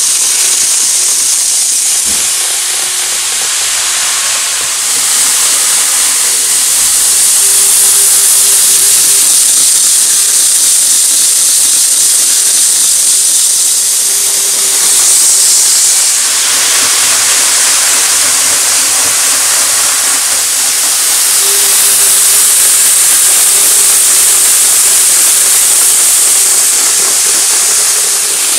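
KATO N gauge E4 series Shinkansen model train running on the layout's track: a steady high-pitched rolling hiss of the wheels on the rails, with a faint steady hum underneath.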